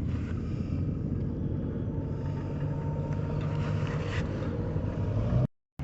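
Vehicle engine running steadily with a low hum; the sound cuts out abruptly near the end.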